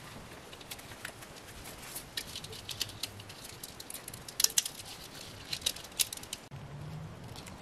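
Gloved hands handling an engine wiring harness and its plastic connectors: scattered small plastic clicks and rattles, with a denser cluster of sharper clicks about four and a half seconds in. The clicking stops abruptly about six and a half seconds in, leaving a faint low hum.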